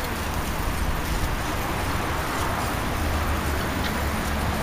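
Steady rolling noise of bicycles moving over asphalt in a group ride, heard from a moving bike, with a low wind rumble on the microphone.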